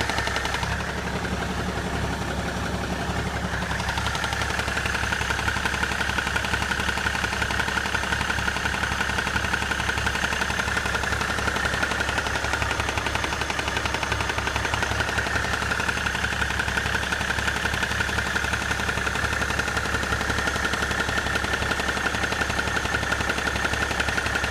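BMW 535d twin-turbo six-cylinder diesel engine running, with a fast, steady knocking from the front of the engine that the owner finds loudest at the level of the intercooler; its cause is unknown to him. The higher-pitched part of the sound gets stronger about four seconds in.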